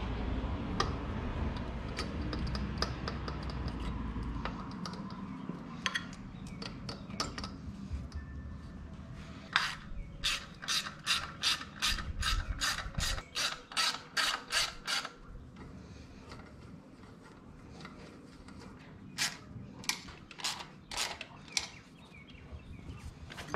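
Ratchet wrench clicking in steady runs of about three clicks a second as bolts on the fuel injector rail are tightened down. A long run comes about ten seconds in and a shorter one near the end, with scattered handling clicks from the injectors being seated before that.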